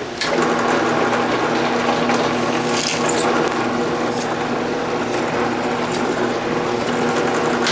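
Drill press running with a 5/32-inch bit, drilling small center holes down through a wooden template into the stock beneath: a steady motor hum with the noise of the bit cutting, and a few light clicks.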